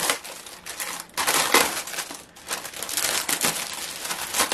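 Thin plastic packaging crinkling and rustling unevenly as it is pulled open and handled.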